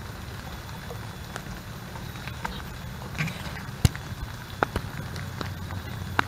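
Rain in a tropical forest: a steady wash of rainfall with a few scattered sharp drip ticks, over a low steady rumble.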